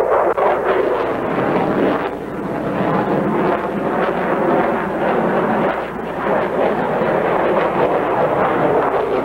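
Sukhoi Su-27 jet fighter flying a display manoeuvre overhead: the loud, steady rushing noise of its two AL-31F turbofan engines.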